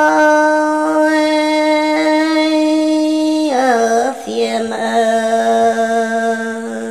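Solo voice singing a Red Dao lượn folk song: one long held note, then a wavering slide down about halfway through onto a lower held note that breaks off near the end.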